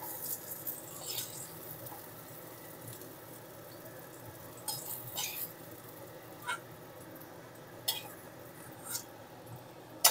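Fried cauliflower florets being lifted out of hot oil in a pan: a cooking utensil scrapes and clinks against the pan several times over a faint sizzle.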